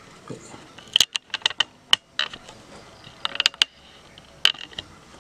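Sharp clicks from a smartphone handled while its camera is in use: a quick run of clicks about a second in, another cluster a little past three seconds, and one last click near the end.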